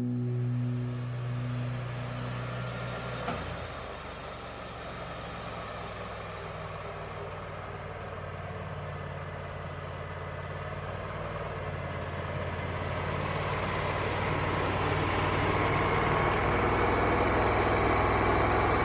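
An engine running at a steady speed, growing louder over the last several seconds.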